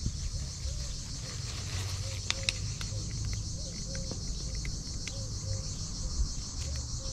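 Crickets chirping in a steady, rapidly pulsing high-pitched trill, over a low steady rumble. A few short crunching clicks come a couple of seconds in, from a cat chewing dry kibble.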